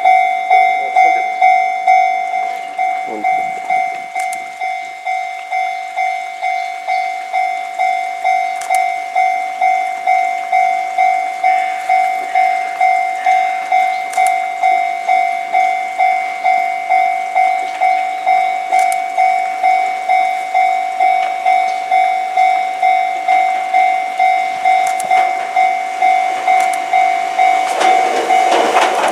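Japanese level-crossing warning bell ringing steadily, a little under two strokes a second. Near the end an approaching Enoden train's wheels and running gear grow loud as it reaches the crossing.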